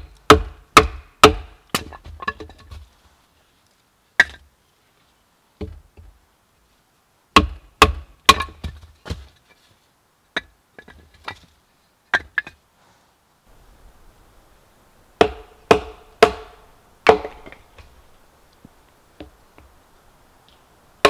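Firewood being chopped and split: sharp wooden knocks in quick runs of three to five, about two a second, with short pauses between the runs.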